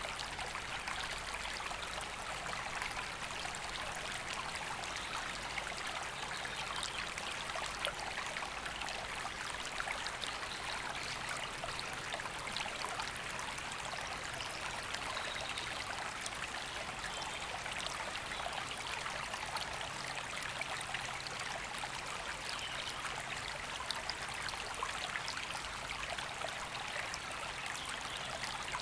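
A river running steadily over stones, a continuous even rush of flowing water.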